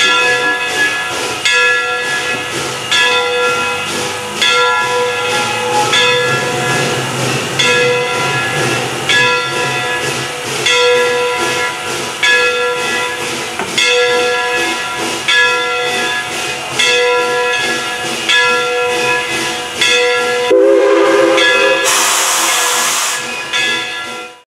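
Bell of the CNJ #113 steam locomotive ringing steadily, struck about once every second and a half. Near the end a brief low tone is followed by a loud burst of hissing steam.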